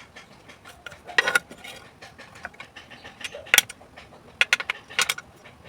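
Hard plastic and metal parts of a power bank and small tools clicking and clattering as they are handled. A scatter of sharp clicks, the loudest about three and a half seconds in, with a quick cluster near the end.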